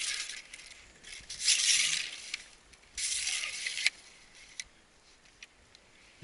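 Rustling and swishing of tall grass and clothing brushing past as someone walks, coming in a few bursts, with a few light clicks in between.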